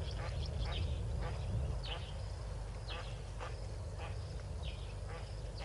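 Yellow-billed duck ducklings peeping: short, high calls that fall in pitch, repeated irregularly about once or twice a second over a steady low rumble.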